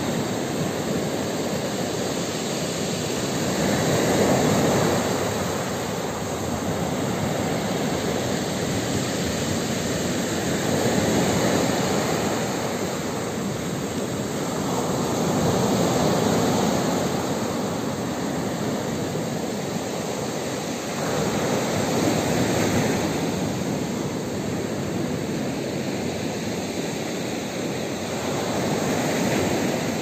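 Sea waves breaking and washing up a pebble beach: a continuous surf that swells in loudness with each wave, about every six seconds.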